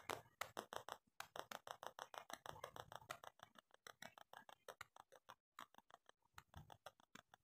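Faint, quick, repeated rubbing strokes on drawing paper as a charcoal drawing is cleaned up along an edge. The strokes come several a second and stop shortly before the end.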